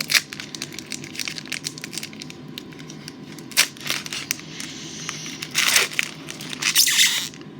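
Crinkling and rustling of a trading-card pack wrapper being handled, with a few louder crackles about three and a half seconds in, near six seconds, and around seven seconds.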